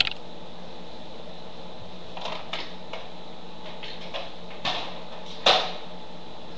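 Steady background hiss with a faint low hum, broken by a few soft rustles and small knocks; the loudest comes about five and a half seconds in.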